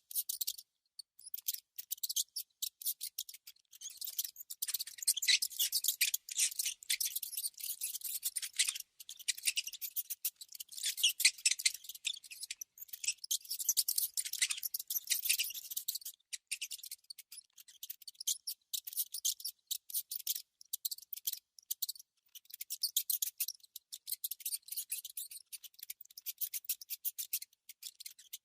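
A mouse scratching and gnawing: rapid, dry, high-pitched clicks in irregular clusters that swell and fade every few seconds.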